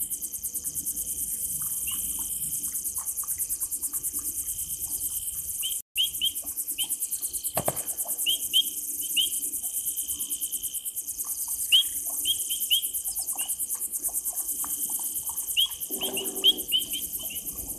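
A night insect chorus: crickets trilling in a fast, even, high pulse, with clusters of three or four short, sharp high chirps repeating every few seconds and one dull thump about halfway through.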